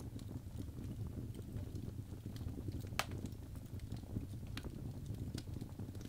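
Birch logs burning in a fireplace: a steady low rumble of flames under scattered crackles and sharp pops, the loudest pop about halfway through.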